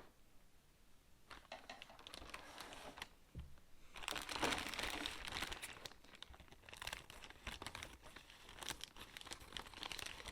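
Plastic bag of jigsaw puzzle pieces crinkling as it is handled, with intermittent rustling that is loudest about four to six seconds in, followed by lighter crackling.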